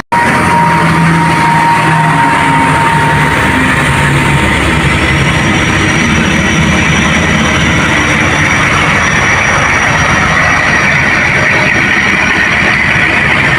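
Heavy vehicle engine running steadily amid dense road noise, with thin high whines held over it. The sound breaks off for a split second at the very start.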